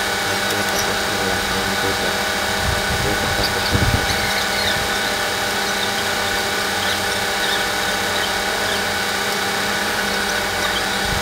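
Steady mechanical hum of running machinery at a constant pitch, with a few faint clicks and a short louder knock about four seconds in.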